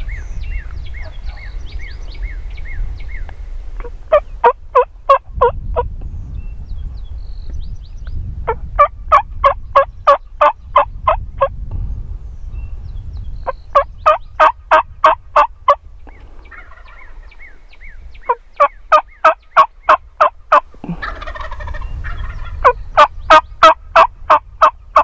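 Turkey yelps blown on a wingbone call: five loud runs, each a quick even series of six to ten notes lasting a couple of seconds, with pauses of a few seconds between runs. These are hen yelps meant to draw in a gobbler.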